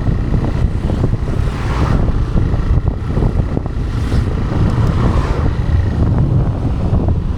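TVS Raider 125's single-cylinder engine running steadily while the motorcycle is ridden, with wind buffeting the microphone.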